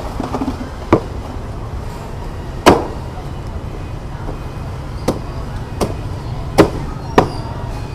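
Heavy meat cleaver chopping through a whole roasted dog onto a thick round wooden chopping block: six sharp, irregularly spaced chops, the loudest about a third of the way in, over a steady low background rumble.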